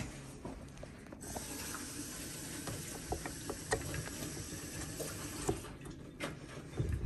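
A steady hiss from about a second in, with small clicks and taps of a KitchenAid stand mixer's flat beater being worked off its drive shaft, and a few louder knocks near the end.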